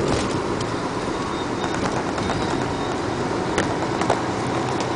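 Semi truck driving at low speed, heard inside the cab: steady engine rumble and road noise, with a few sharp clicks or rattles, two of them more distinct in the second half.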